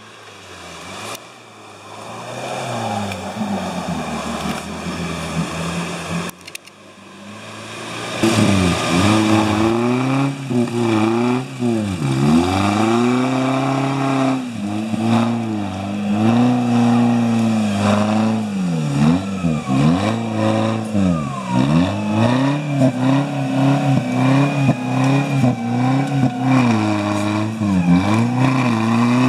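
Off-road competition vehicle's engine, quieter at first, then revving hard over and over from about eight seconds in, its pitch dropping and climbing back every second or two.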